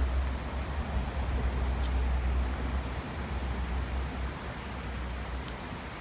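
Loud, steady rush of a waterfall with a deep rumble, and a couple of faint crackles from a wood campfire about two and five and a half seconds in.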